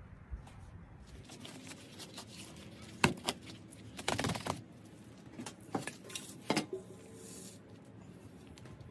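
Hand scooping potting soil out of a stainless steel stock pot, with rustling soil and a few sharp metallic knocks and clinks from the pot: one about three seconds in, then a cluster over the next few seconds.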